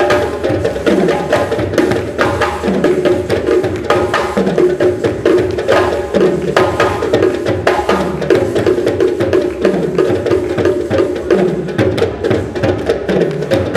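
Music with a busy percussion beat and a low note that drops in pitch about once a second.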